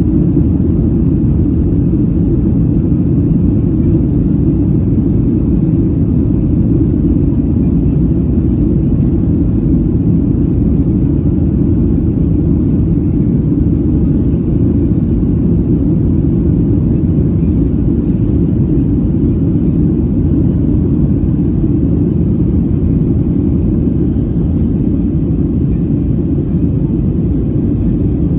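Steady low rumble of a Boeing 737-800's CFM56-7B turbofan engines and rushing air, heard inside the passenger cabin during the climb after takeoff.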